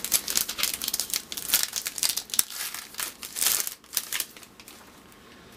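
Foil wrapper of a 2010 Upper Deck baseball card pack crinkling and tearing as it is opened by hand, stopping about four seconds in.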